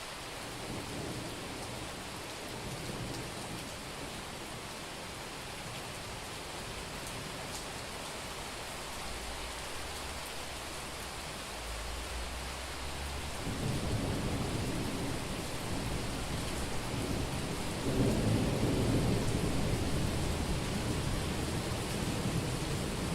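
Summer thunderstorm: steady rain falling on a street, with a low rolling rumble of thunder that swells about halfway through and peaks a few seconds later.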